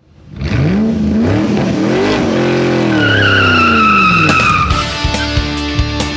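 A vehicle engine revving up and then falling in pitch as it goes by, with a tyre squeal over the fall. Music with a steady drum beat takes over about five seconds in.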